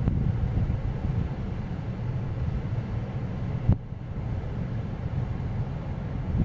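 Strong onshore wind buffeting the microphone in an uneven low rumble, over the wash of heavy surf. A single sharp knock about halfway through, followed by a brief lull.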